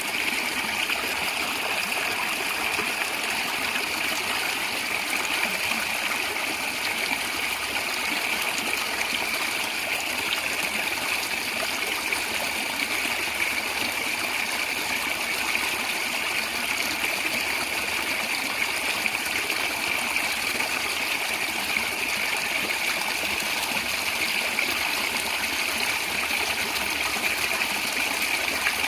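Natural stream water gurgling and trickling, an even, unbroken rush of flowing water.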